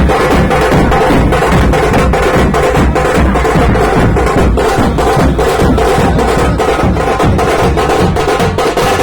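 Loud percussion-driven music: a fast, steady drum beat with sharp repeated strikes throughout.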